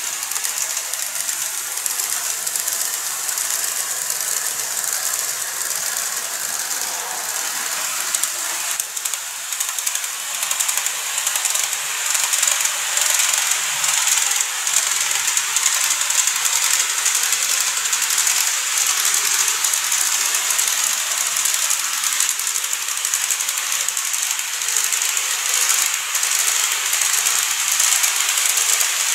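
KATO N-scale 415 series electric multiple unit running along the track: its small metal wheels and motor make a steady high-pitched rushing noise with faint clicks, a little louder from about twelve seconds in.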